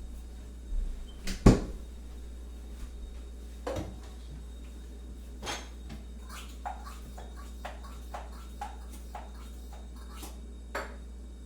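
Crockery and kitchen utensils being handled: a heavy knock about a second and a half in, then a run of light, ringing clinks, about two a second, like a spoon tapping against china.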